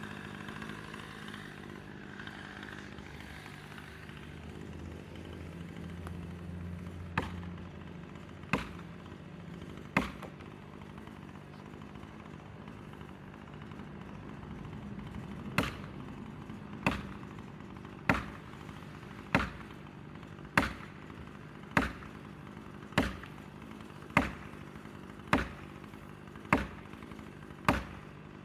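Felling wedges being driven into the back cut with hard single blows: three strikes, a pause, then a steady run of blows a little over a second apart. A chainsaw dies away in the first couple of seconds.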